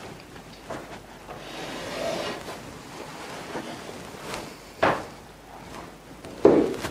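Altar server's handling sounds as he lifts and carries the altar missal: rustling and light knocks, a sharp knock about five seconds in as the book is taken up, and a louder thump near the end.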